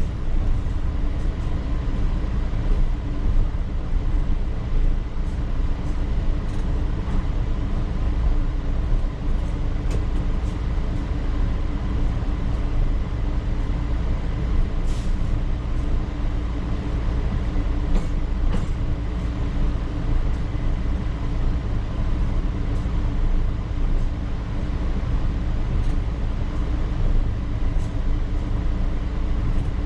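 Cab of a P865 light rail car running along the track: a steady rumble of wheels on rail with a faint electric hum, and a few sharp clicks about ten, fifteen and eighteen seconds in.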